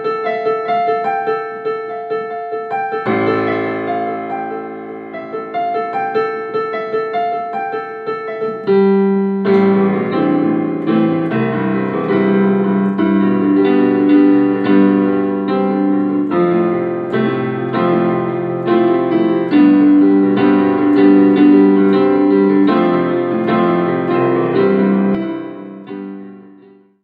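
Background piano music, a steady run of notes over chords, growing fuller about nine seconds in and fading out near the end.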